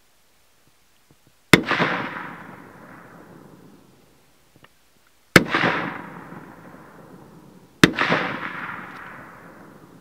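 Three rifle shots fired across an open field, the first about a second and a half in, the next two about four and two and a half seconds apart. Each shot is a sharp crack followed by a long echo rolling off over two to three seconds.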